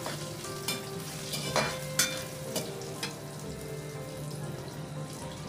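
Tadka of garlic, crushed ginger, dried red chillies and whole spices sizzling in hot oil in a kadhai, fried until it turns light red. There are a few sharp clicks in the first three seconds.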